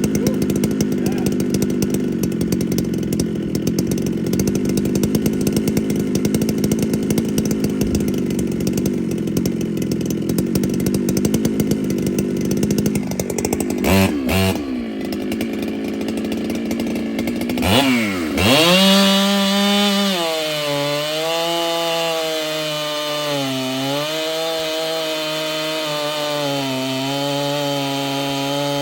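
Ported Husqvarna 395 two-stroke chainsaw running hard in a cut. About halfway through the revs swing up and down with two sharp peaks, then settle into a steady, slightly lower drone that wavers a little.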